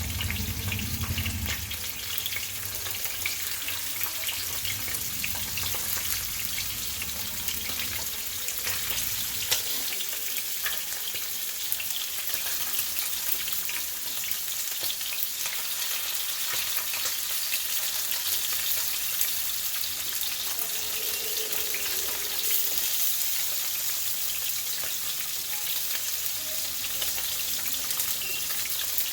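Marinated chicken wings shallow-frying in hot oil: a steady sizzle with dense crackling and spitting.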